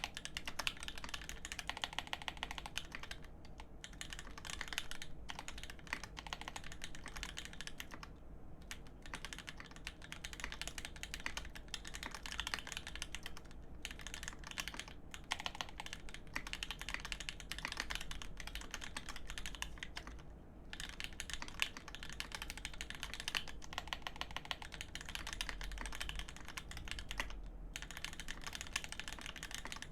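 Continuous typing on a GEON F1-8X custom mechanical keyboard with an aluminium plate and lubed Telios v2 switches on 75 g springs: a fast, even stream of keystrokes with a few brief pauses.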